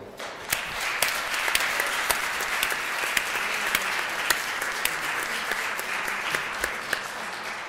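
Audience applauding: dense clapping that starts about half a second in and eases off a little near the end.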